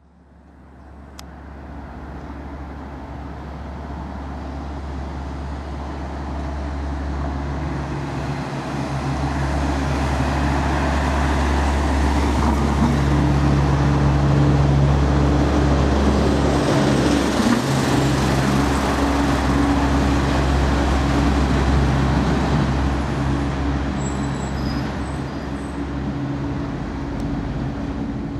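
Road traffic on a city street: cars and larger vehicles driving by, with a steady engine hum that builds up over the first ten seconds and stays loud.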